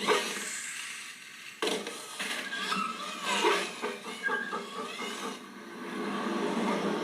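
A busy mix of film sound effects with vehicle sounds among them, changing every second or so, with a sharp hit about one and a half seconds in.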